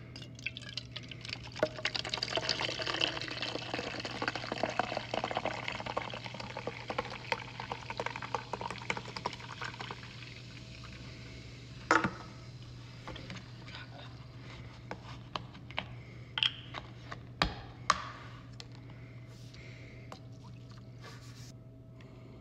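Red Bull poured from a can into a stainless steel cup, fizzing and crackling for about eight seconds. Then come a few sharp clicks and knocks, and a quieter pour of oat creamer into the drink near the end.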